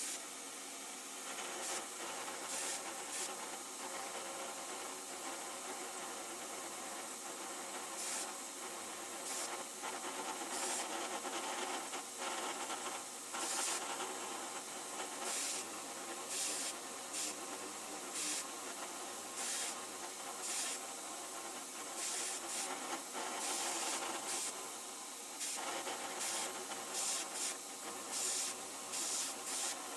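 Repeated short bursts of compressed air hissing from a hand-held hose, blowing chips out of a slot being milled in cold-rolled steel. Under them is the steady running of the milling machine, with its end mill cutting. The bursts come most often near the end.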